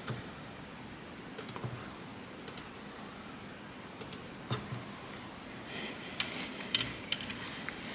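Light computer-mouse clicks, single and irregularly spaced, more of them in the second half, over a quiet room background.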